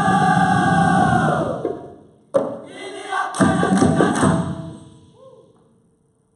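Dikir barat troupe chanting in unison: the chorus holds one sung note, a sharp hit comes about two and a half seconds in, and a short burst of group voices and claps follows before the sound fades away near the end.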